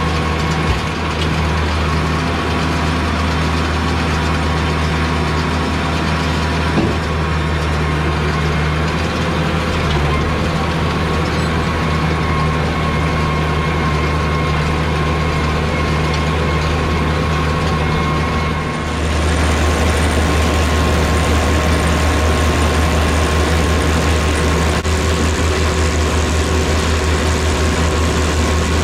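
White 2-135 tractor's diesel engine running steadily while pulling a round baler. About two-thirds of the way through, the sound shifts and grows a little louder.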